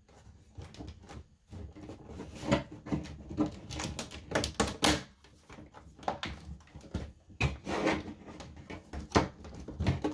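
The plastic back cover of an HP all-in-one desktop being handled and pressed into place by hand: a string of irregular clicks and knocks of plastic, the loudest about two and a half and five seconds in.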